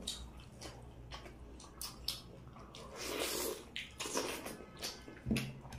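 Close-up eating sounds of people eating a saucy chicken curry and soft fritters by hand: scattered small wet smacks and clicks of chewing and fingers in the food, with a couple of brief soft swells.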